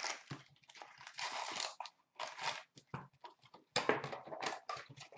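Foil-wrapped hockey card packs crinkling and rustling in irregular bursts as they are pulled from their box and handled.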